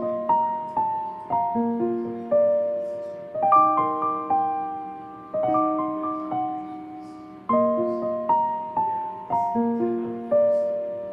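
Background music: a slow, gentle solo piano melody, single notes struck and left to ring out.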